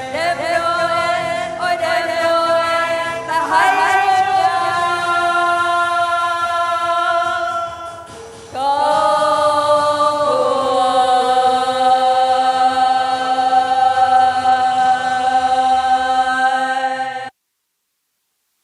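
A choir singing a Vietnamese Christmas carol in held, sustained chords. About eight seconds in the singing briefly drops away, then comes back on a long held final chord that cuts off abruptly near the end.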